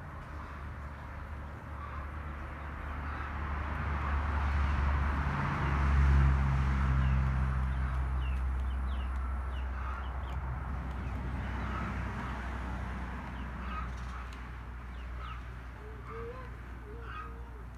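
Outdoor yard ambience: a low engine drone that swells to its loudest about six seconds in and then eases off, with small birds chirping throughout and chickens clucking near the end.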